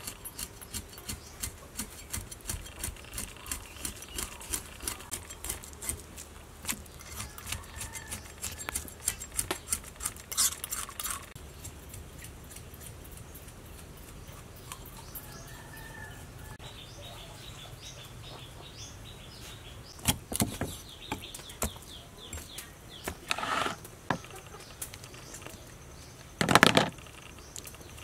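Cleaver working fish on a wooden chopping block: quick light clicks and scrapes for about the first ten seconds, then a few heavy chops into the block in the last eight seconds.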